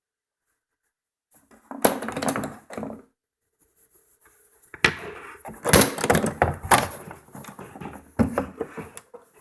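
A typewriter carrying case being handled, knocking and thunking: a short burst of clatter about a second and a half in, then a longer run of knocks with several sharp ones from about five seconds in.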